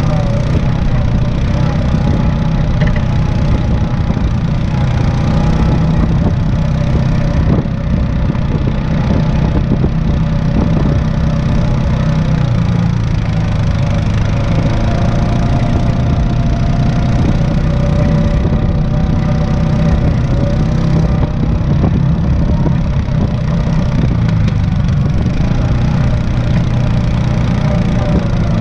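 Off-road vehicle engine running steadily at low trail speed: a continuous low drone whose pitch rises and falls slightly.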